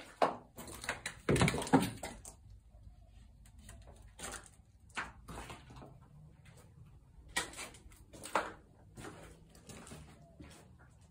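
Footsteps scuffing across a gritty, debris-strewn floor, irregular knocks about a second apart, with a louder cluster of bumps and scrapes about a second and a half in.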